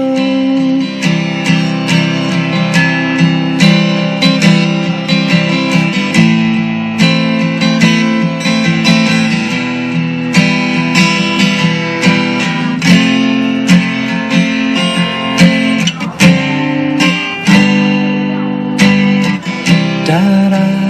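Acoustic guitar playing an instrumental break in a song demo, with strummed and plucked chords and no singing.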